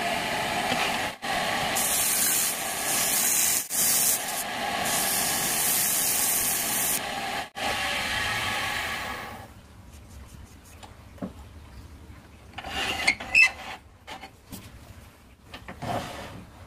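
Wood lathe spinning a coffee-wood blank, with a steady hissing rub of a tool or abrasive against the turning wood, broken by a few short cuts. The hiss stops about nine and a half seconds in, leaving a low hum and a few light clicks and knocks.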